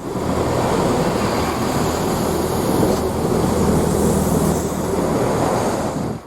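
Train running past at close range, a loud steady rumble with hiss from the wheels and running gear.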